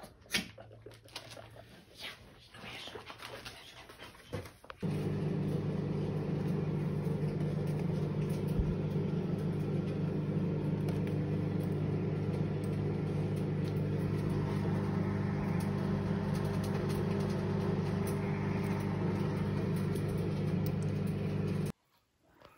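A kitchen appliance runs with a steady electrical hum. The hum starts abruptly about five seconds in and cuts off shortly before the end. Before it come a few faint clicks and knocks.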